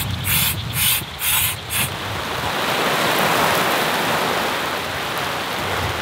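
A hand air pump inflating an air tent: five quick strokes, each a sharp hiss of air. Then a steady wash of heavy rain, with low wind rumble on the microphone.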